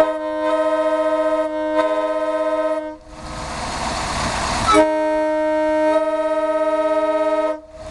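Air horn on a bus's air system sounding a chord of several notes in two long blasts of nearly three seconds each, with a pause of about two seconds between them.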